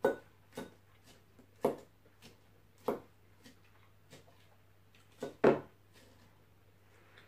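A metal fork clicking and knocking against a ceramic salad bowl while lettuce is picked up, in about six irregular sharp taps with a close pair near the end the loudest.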